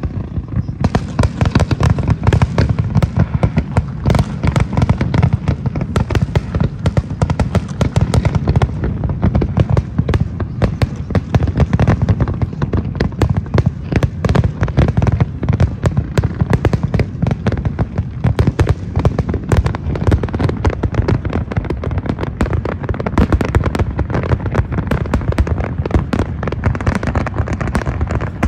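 Aerial fireworks display bursting without a break: a rapid, dense barrage of bangs and crackles, many a second, loud throughout.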